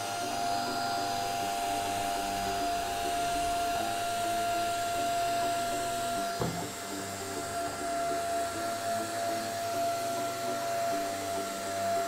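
Small handheld vacuum cleaner running with a steady motor whine as its brush nozzle sucks dust off an air purifier's HEPA filter, with one brief knock about halfway through.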